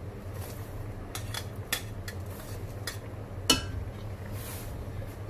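Metal ladle and ceramic dish clinking against a stainless steel pot as diced carrots are scraped into porridge and stirred, a few separate clinks with the loudest clank about three and a half seconds in, over a steady low hum.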